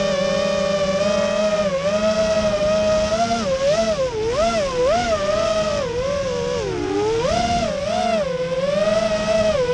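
High-pitched whine of an FPV racing quadcopter's electric motors and propellers, its pitch swooping up and down every second or so with quick throttle changes, over a steadier lower motor hum.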